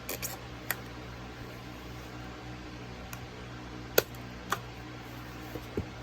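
Steady room hum, like a fan, with a handful of sharp clicks and taps scattered through it: small objects being handled.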